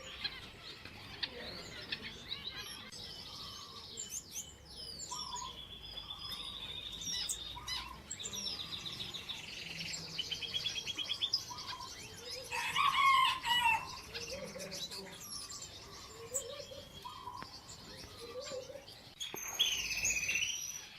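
Aviary finches, blue-faced parrot finches among them, chirping with high thin calls and fast trills, and a louder flurry about two-thirds of the way through.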